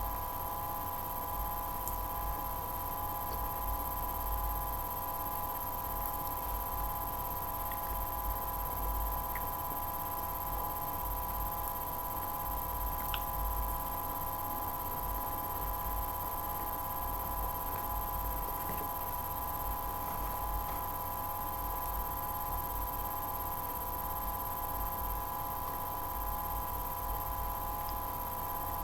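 Steady electrical hum made of several held tones over a low rumble, with a few faint, scattered clicks.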